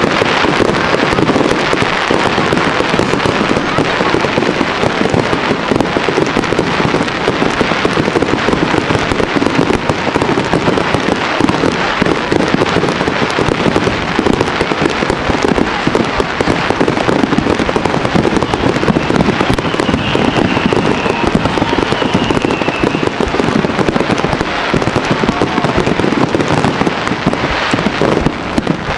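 Fireworks display: a dense, unbroken barrage of many rapid firework bangs that keeps up at a steady, loud level throughout.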